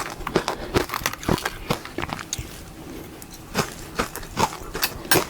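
Powdery matcha-dusted ice being bitten and chewed close to the microphone: a run of sharp crunches that thin out for a second or so in the middle before picking up again.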